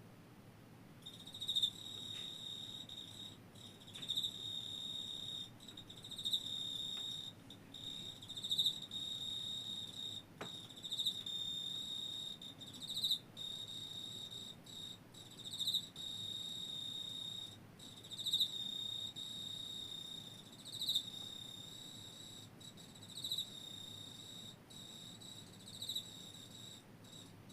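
Male Emma field cricket (Teleogryllus emma) singing: a steady high-pitched trill, broken by short pauses, with a louder chirp every two to three seconds. It starts about a second in.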